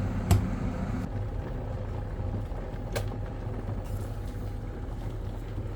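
Electric kettle heating water: a steady low rumble and hiss with a faint steady tone, and a sharp click just after the start and another about three seconds in.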